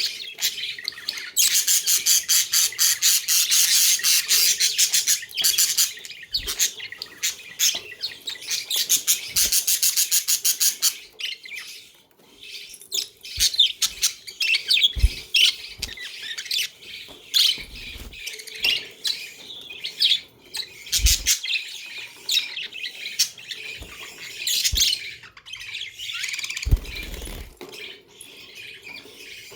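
Budgerigars chattering and chirping. A fast, dense warble runs for a few seconds near the start and again around ten seconds in, then comes a scatter of separate chirps and squawks. A few short low thumps sound in between.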